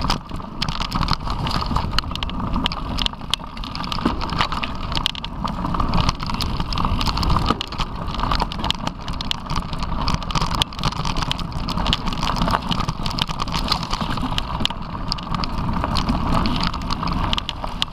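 Mountain bike riding over a bumpy dirt trail: a steady low rumble from the tyres and frame, crowded with constant rattling and clicking.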